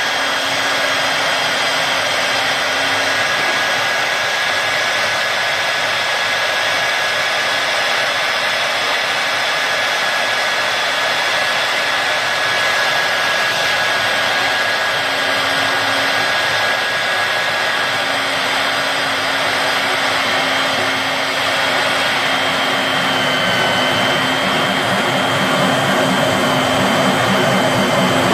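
Magbroach MDT140 magnetic drill running steadily, its 2300 W motor giving a loud, even whine with a couple of high steady tones. Near the end a low, fast rattle builds up underneath.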